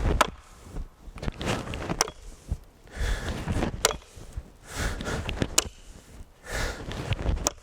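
Chopping axe biting into a log, about five sharp blows roughly two seconds apart, with heavy breathing between the swings.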